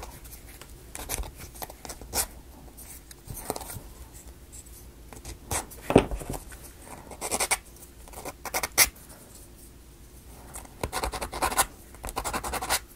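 Small laser-cut plywood model pieces being handled and fitted together by hand: scattered light clicks and taps with short bouts of scratching, wood on wood.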